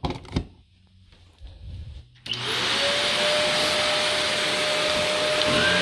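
Two sharp knocks, then a vacuum cleaner switched on about two seconds in: its motor whine rises as it spins up and then runs steadily.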